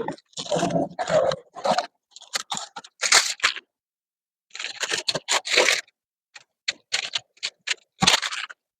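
Masking tape and masking paper being peeled and pulled off a painted truck body: short, irregular tearing and crinkling bursts with brief pauses between them.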